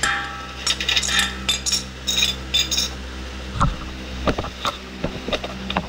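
Steel hand wrenches clinking and clicking on the nut of a rear suspension control arm's cam bolt as it is tightened, with a short metallic ring at the start and a few sharper knocks in the second half.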